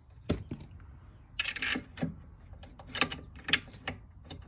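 Metal hand tools and hardware being handled during mechanical work: a string of light, sharp clinks and clicks, with a brief noisy burst about a second and a half in.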